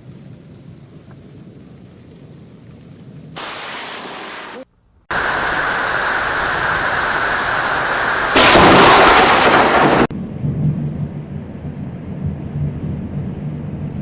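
Thunderstorm with rain, broken by a sudden, very loud thunderclap from a close lightning strike a little past the middle, lasting under two seconds. Steady rain and storm noise runs on either side of it, quiet at first and louder after a brief dropout.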